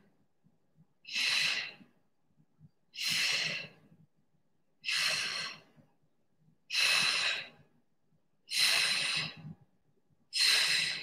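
A woman's forceful exhalations, six in all, one about every two seconds, as she breathes out with each single-arm dumbbell chest press.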